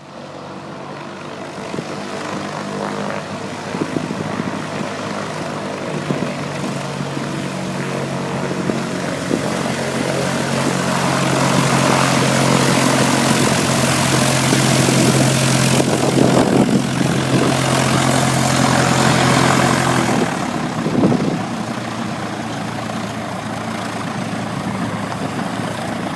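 Small propeller aircraft's engine droning steadily with rushing air, growing louder; about twenty seconds in the engine tone drops out and only the rush of air remains.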